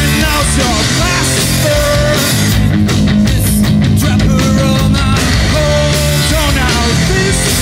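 A rock band playing a loud grunge/indie rock song on distorted electric guitars, bass and drums, with a wavering lead guitar line.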